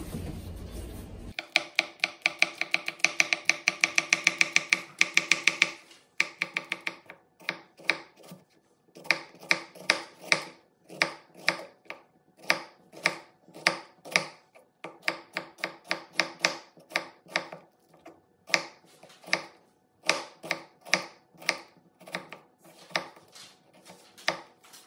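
Kitchen knife chopping on a wooden cutting board: after a second or so of rushing noise, a fast run of rapid chops, then steady slicing through an onion at about two strokes a second, each stroke a sharp knock of the blade on the board.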